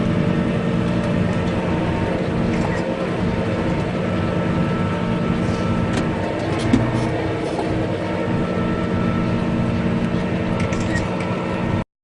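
Tractor diesel engine running steadily under load, with one short knock about two-thirds of the way through.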